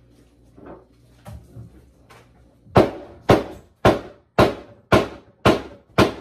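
Hammer blows on a kitchen cabinet being knocked out of place: a few light taps, then about seven loud, evenly spaced strikes, roughly two a second.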